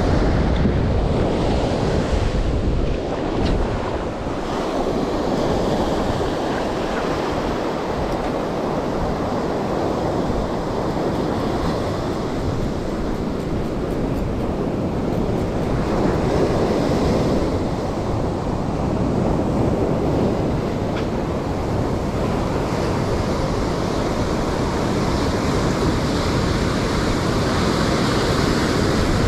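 Surf breaking and washing up a sandy beach, with wind buffeting the microphone. The wash swells louder about halfway through and again near the end as waves come in.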